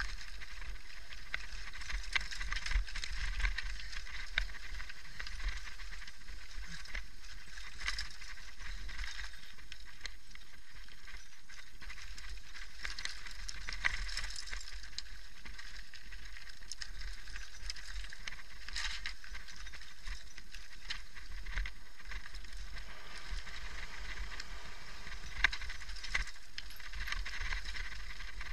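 Mountain bike rolling downhill over a rocky, gravelly trail: steady tyre crunch and rattling of the bike, with a low rumble underneath and scattered sharp knocks, a few louder ones standing out.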